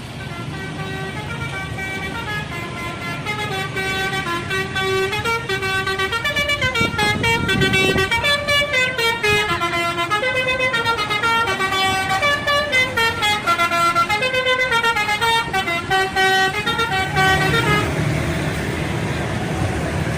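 Indonesian bus telolet horn, a set of musical air-horn trumpets, playing a fast, tumbling melody of stepped notes over the bus's engine running. The horn stops a few seconds before the end, leaving the engine rumble.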